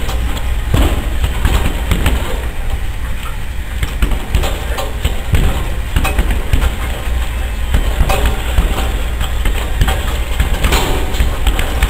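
Gloved punches landing on a hanging heavy punching bag: irregular thuds and slaps, a few quick combinations, over a steady low rumble.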